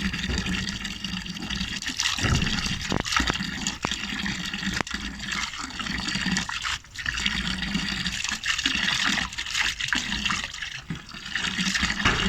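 Water running and splashing steadily, with a few sharp clicks.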